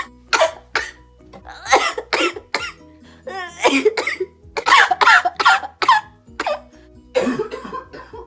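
A woman's coughing fit: harsh coughs in quick repeated bursts, some drawn out into wheezes, from a lingering chest illness she thinks may be pneumonia. Faint music plays underneath.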